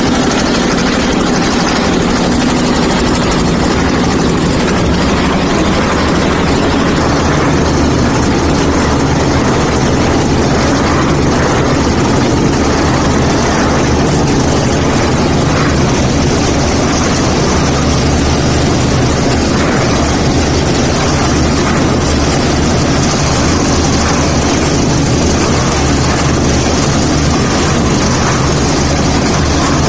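Concrete mixer's engine running steadily at a constant speed, a loud continuous drone.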